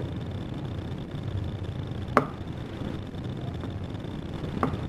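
Hands kneading soft potato-and-flour dough in a ceramic bowl, with two sharp knocks on the bowl: a loud one about two seconds in and a lighter one near the end, over a steady low hum.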